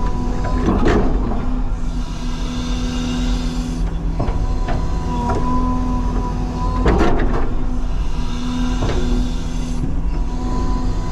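CAT 323 excavator running under working load: a steady engine drone with a constant hydraulic tone. Bursts of clatter come about a second in and about seven seconds in, with a few lighter knocks between.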